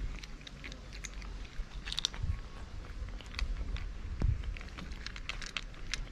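Two cats crunching dry kibble, a quick irregular patter of small crunches and clicks, with one louder knock about four seconds in.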